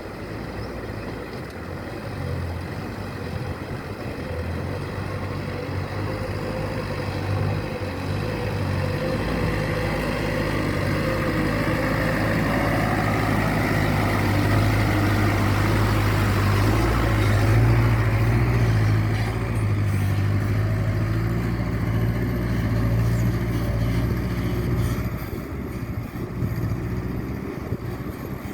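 Toyota Dyna dump truck's engine running as the truck works, a steady low drone that grows louder toward the middle and eases off near the end.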